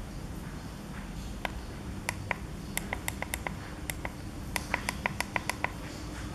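Push buttons on an electric-bike LCD display being pressed repeatedly: a dozen or so short clicks, mostly in two quick runs of about six presses each, the second near the end.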